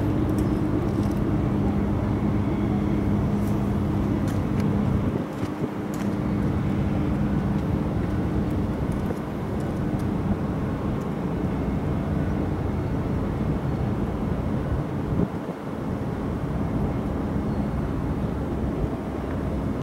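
Low droning hum of a ship's engine over a steady outdoor rumble; the hum fades out about halfway through.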